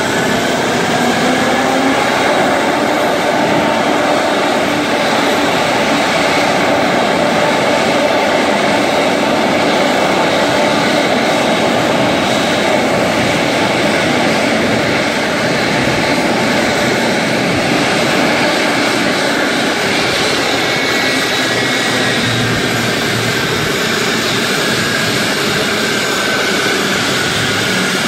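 Boeing 777 jet engines running at taxi power, a steady loud rush with a faint whine that slowly shifts in pitch as the airliner rolls past.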